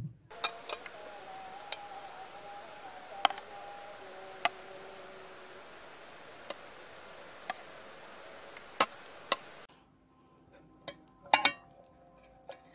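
Spoon clinking and scraping against a metal cooking pot and a plate as rice is served: scattered sharp clinks over a faint steady hiss, with a louder cluster of clinks near the end.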